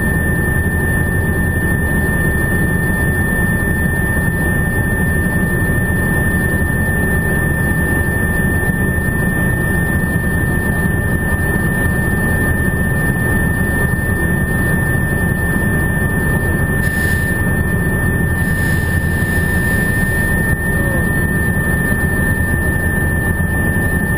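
Helicopter cabin noise in flight: the rotor and engine running steadily and loudly, with a constant high whine over the low drone.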